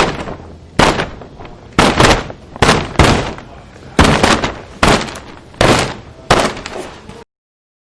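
A run of about ten sharp impacts at uneven intervals, mostly under a second apart, each dying away quickly, with two close together about two seconds in.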